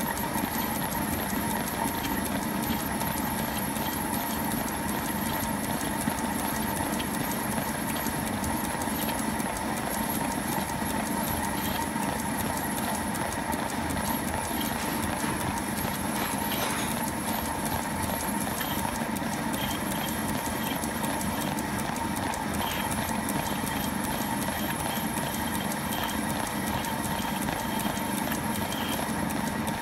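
Metalworking lathe running steadily, with a constant hum and a fast, even ticking from its drive.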